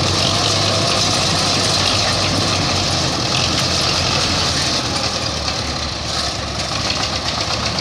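Belarus 510 diesel tractor engines running hard under load as the two tractors pull against each other in a tug-of-war. Near the end the engine sound breaks into a fast, even pulsing.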